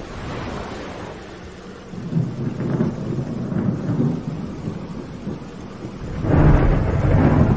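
Thunder rumbling through steady rain, with a louder roll of thunder building suddenly about six seconds in.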